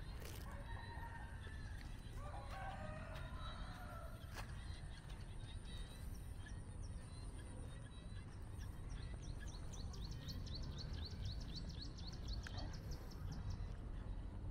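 Outdoor ambience: a steady low rumble with birds calling over it. A warbling call comes about two to four seconds in, and a fast, high chirping trill runs from about nine to twelve seconds in.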